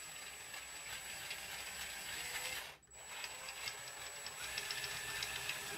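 Cordless drill/driver running as it drives a screw into an antenna's mounting clamp, a steady high whine with fine rapid clicking. It stops for a moment a little under three seconds in, then runs again and stops near the end.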